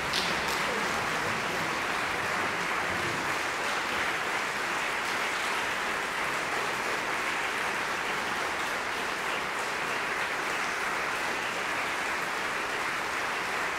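Audience applauding, a dense, steady clapping that holds at an even level throughout.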